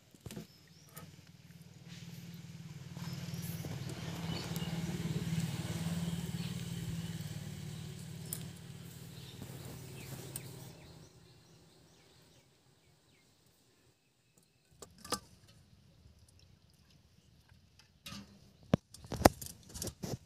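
A motor engine swells and fades over several seconds, as of a vehicle passing. Later come a few sharp clicks and drips of water on steel, loudest near the end, from wet ant eggs being handled over a perforated steel plate.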